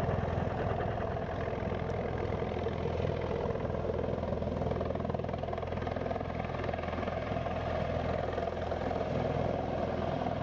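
MV-22 Osprey tiltrotor hovering low in helicopter mode, its twin proprotors giving a loud, steady, rapid beat.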